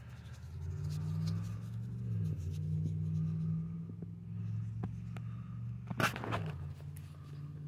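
A steady low engine hum from a running vehicle, its pitch shifting slightly about two seconds in. About six seconds in comes one short loud crackle of handling, when the flint point is set down on the soil.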